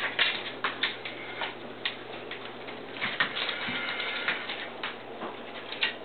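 A dog's claws clicking and tapping irregularly on a tile floor as a beagle walks.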